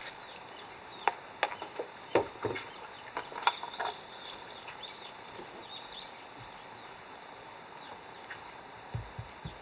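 Insects chirring steadily at a high pitch, with a scatter of short knocks and taps in the first few seconds and a few low thumps near the end.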